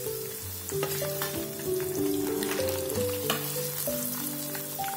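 Cornflour-coated paneer cubes deep-frying in hot oil, sizzling with small crackles, with background music playing.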